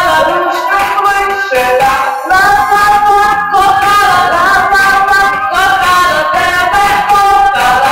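Female vocal ensemble singing through microphones, with instrumental accompaniment keeping a steady beat.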